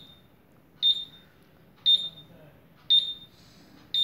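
Kusam-Meco KM 7015IN insulation resistance tester sounding short, high electronic beeps, about one a second, while its 1 kV insulation test is running: the warning that test voltage is live on the leads.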